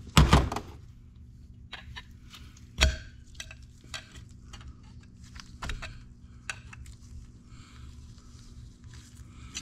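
Steel hand tool clicking and scraping against a hydraulic cylinder gland as a seal is picked out of it, with a loud knock at the start and another about three seconds in, over a steady low hum.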